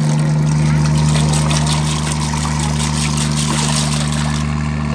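A motor running steadily with a low hum, over splashing as feed pellets are tossed into the river and pangasius catfish thrash at the surface to feed. The splashing drops off sharply near the end while the motor runs on.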